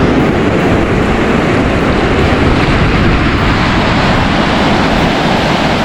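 Large lake waves breaking in a steady, dense rush of surf, with wind buffeting the microphone as a heavy low rumble.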